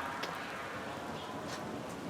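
Steady rain falling, an even hiss, with a couple of faint clicks.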